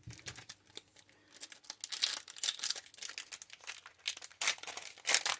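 A Digimon Card Game booster pack's foil wrapper crinkling and tearing as it is opened: a dense, irregular crackle.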